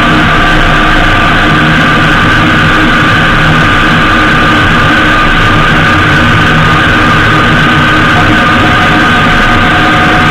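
Honda GL1800 Gold Wing's flat-six engine running steadily at cruising speed under loud, constant wind and road noise on the bike-mounted camera's microphone, with a steady high whine above it.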